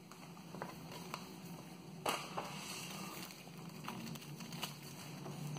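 Faint rustling and light taps of a paper booklet and a plastic bag being handled, with scattered small clicks and one sharper tap about two seconds in.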